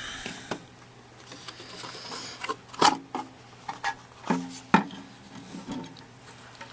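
The metal cabinet of a vintage vacuum-tube signal generator being handled and turned around: scattered clicks and rubbing, with two sharper knocks about three and five seconds in.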